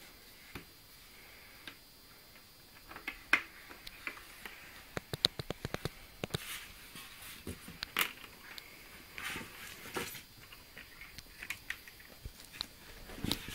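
Handling noise from a Yamaha DD-10 drum machine and its cables being moved about on a bed: scattered sharp plastic clicks and knocks with light rustling, including a quick run of about eight clicks in the middle.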